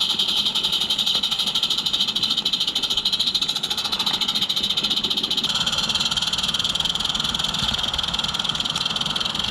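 Frogs calling in a continuous fast, high-pitched trill, the chorus shifting slightly about halfway through.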